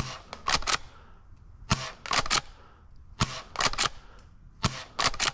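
Double Eagle M870 airsoft pump shotgun being fired four times, roughly every second and a half. Each sharp shot, firing three BBs at once, goes with a quick double or triple clack of the pump being racked.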